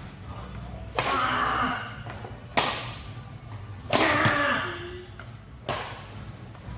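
Badminton racket strings hitting a shuttlecock, four sharp smacks about a second and a half apart as two players trade long clears.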